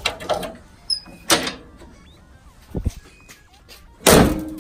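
The hood of a 2008 Chevy Express van being lowered and shut: a few knocks and clunks, a sharp one about a second in and the loudest near the end.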